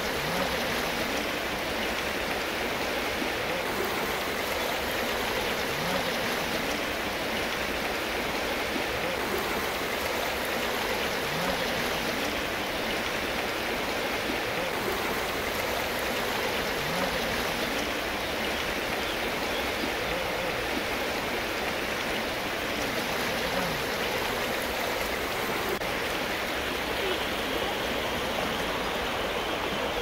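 Water of a mountain river and waterfall flowing in a steady, even rush.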